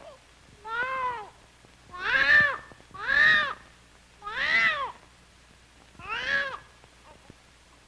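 Newborn baby crying just after birth: five short wails about a second apart, each rising and then falling in pitch.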